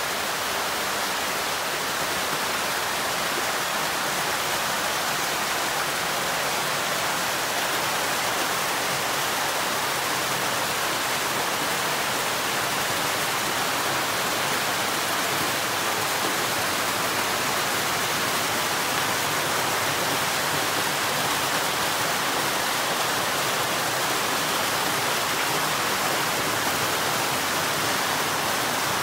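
Steady sound of moving, bubbling water in aerated koi holding tanks, an even wash of noise with no break or change.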